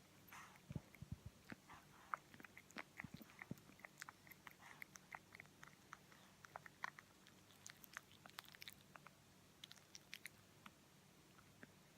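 Sleeping pug puppy suckling in its dream: soft, wet mouth clicks and smacks in quick, irregular runs, several a second.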